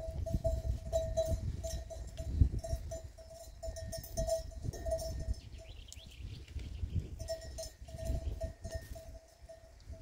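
Bells on grazing livestock clanking over and over as the animals move, with a short break partway through, over low thuds and rumbling.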